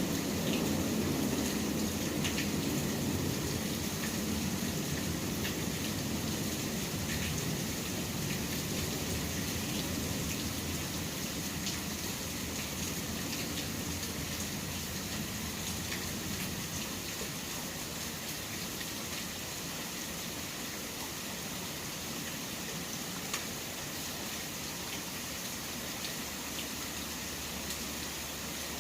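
Steady rain: an even hiss flecked with fine pattering drops, over a low rumble that fades away during the first several seconds. A single small click sounds about two-thirds of the way through.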